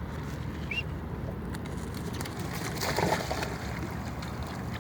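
Steady background noise with a single short, high chirp from a bird about a second in, then a brief louder burst of sound around three seconds in.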